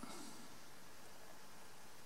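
Faint steady hiss of room tone, with no distinct sound events.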